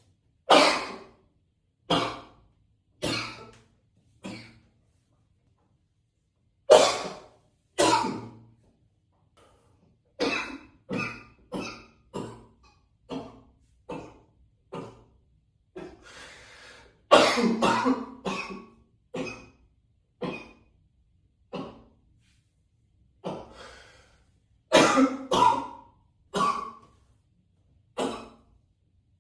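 A man coughing again and again in a long fit, with hard coughs sometimes single and sometimes in quick runs, and some throat clearing. The coughs ring out in an echoey bathroom.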